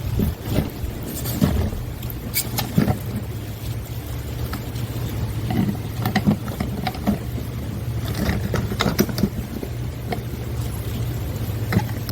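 A steady low mechanical hum with scattered sharp knocks and clicks over it.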